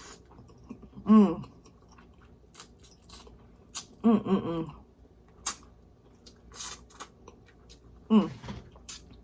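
Close-up chewing and wet mouth smacks from eating crispy fried red snapper by hand, with small crunches and clicks. Three short hummed sounds that fall in pitch break in, about a second in, at about four seconds and near the end.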